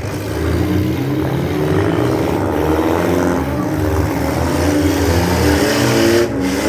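Several demolition derby cars' engines running and revving at once, their pitch rising and falling, with a brief drop in level near the end.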